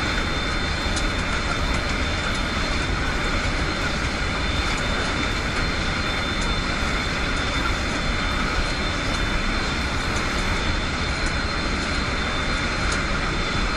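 Aircraft engine running with a steady, even noise that does not change.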